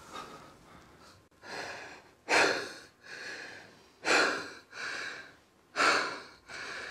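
A person breathing heavily, with deep in-and-out breaths. The three loudest breaths come about every second and three-quarters, with softer ones between them.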